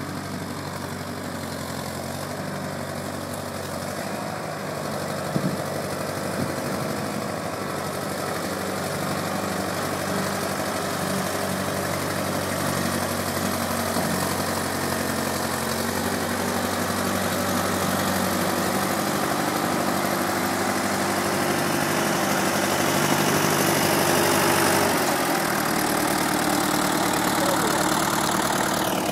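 Doe Triple-D tractor's twin Fordson Super Major four-cylinder diesel engines running as it drives closer, growing steadily louder. Two sharp knocks come about five seconds in, and the engine note changes about four seconds before the end.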